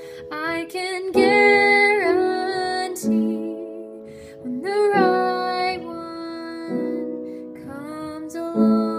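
A woman singing a slow, gentle ballad with held notes and pitch slides, over a soft instrumental accompaniment.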